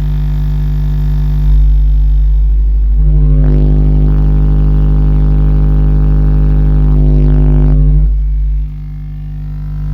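Six custom Soundstream XXX 15-inch subwoofers playing a 50 Hz test tone in a bass burp, heard inside the car. The tone is loud and swells about a second and a half in. It gains a buzzy overtone from about three seconds, then eases back near eight seconds.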